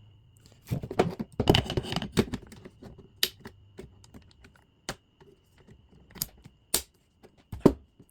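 AR-15 upper and lower receivers being handled and fitted back together: a burst of rattling and clicking, then several separate sharp metal clicks, as of the receivers closing and the takedown pins being pushed home.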